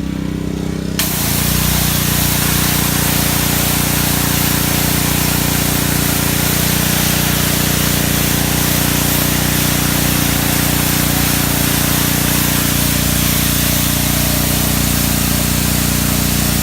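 Engine-driven pressure washer running, and about a second in the spray starts: a loud, steady hiss of high-pressure water blasting the pavement over the engine's steady hum, washing fuel-oil cleaner off a diesel stain.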